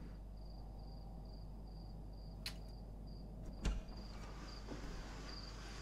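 A cricket chirping steadily, about two high chirps a second, over a low steady hum. A sharp click comes halfway through, and a louder dull thump follows just after.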